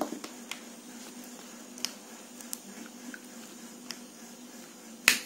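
A spoon stirring sliced sweet potato through wet flour batter in a glass bowl: a soft squishing, a few light clicks of the spoon on the glass, and one sharper knock near the end.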